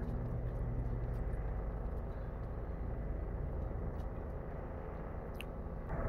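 Steady low rumble of distant city noise at night: traffic mixed with the drone of helicopters overhead.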